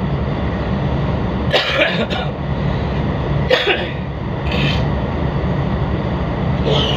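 Tugboat's diesel engines running steadily, a loud low drone heard on board. A few short vocal sounds like coughs cut in over it.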